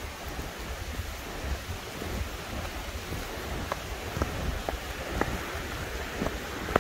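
Wind buffeting the microphone over a steady rushing hiss, and from a little past halfway a hiker's footsteps on a dirt-and-gravel trail, about two steps a second.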